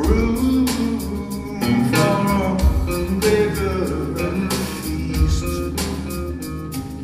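Live blues band playing a slow blues: keyboard and electric guitar over bass and drums, with regular drum strikes.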